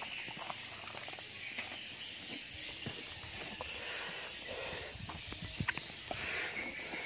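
A steady, high-pitched insect chorus, like crickets or cicadas, running unbroken, with a scatter of light clicks and taps from handling.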